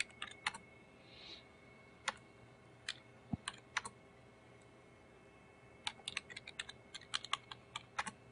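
Keystrokes on a computer keyboard: sharp separate clicks, a few at the start, single strokes spread over the next few seconds, then a quick run of typing near the end.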